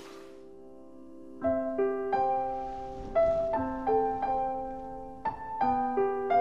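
Slow, tender background piano music: a held chord fades out, then about a second and a half in single notes begin to be struck one after another, each ringing on under the next.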